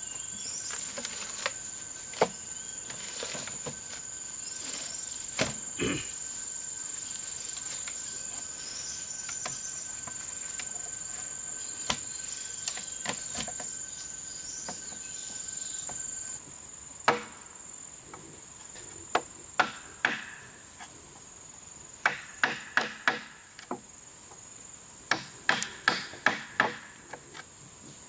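A steady high-pitched insect drone, with a wooden club knocking bamboo poles into the joints of a bamboo table frame. A few single knocks come in the first half; from about two-thirds of the way through the knocks come in quick runs of several taps.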